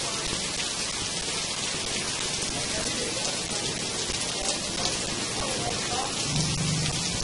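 Heavy rain falling steadily on a street and on shop roofs, a continuous even hiss of drops on wet ground, with water running off the roof edges.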